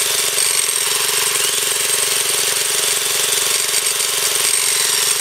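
Older Briggs & Stratton single-cylinder gas engine, about 8 hp, running steadily at speed with a rapid even firing beat, belt-driving a GM alternator that is generating power. A thin high-pitched whine rides over it.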